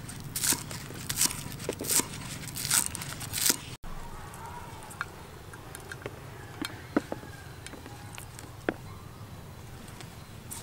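Cleaver chopping green onions on a wooden cutting board, a crisp cut about every half second for roughly four seconds. Then, after a sudden break, only faint scattered ticks as the chopped onion is sprinkled onto a plate.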